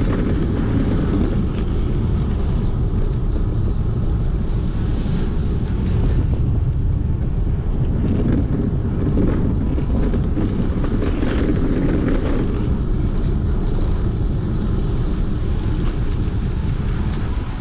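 Steady low rumble of wind on the microphone and tyre noise from a fixed-gear bicycle being ridden, with a few faint clicks.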